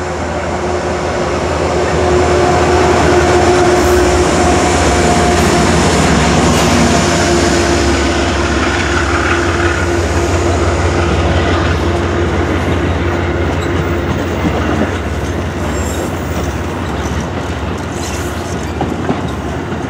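Amtrak passenger train, a P32AC-DM locomotive pulling Viewliner sleeping cars, rolling past close by with a steady rumble of wheels on rail. A steady tone rides on top of the rumble for several seconds in the middle.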